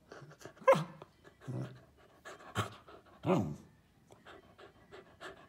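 Samoyed puppy "whispering" on command: about four soft, breathy woofs, two of them with a pitch that falls away.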